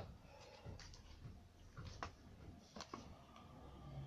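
Faint handling noises of a cardboard model and a hot glue gun being picked up and moved: a handful of soft clicks and taps.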